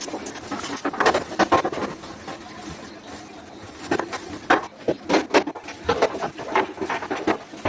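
Irregular knocks and clatter of objects being handled, coming in clusters, busiest in the second half.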